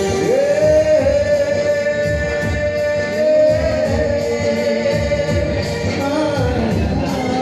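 A singer's voice through a microphone over backing music with a steady beat, holding long sustained notes.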